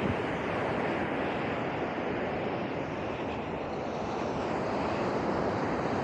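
Ocean surf washing on a sandy beach, a steady wash of noise, with some wind on the microphone.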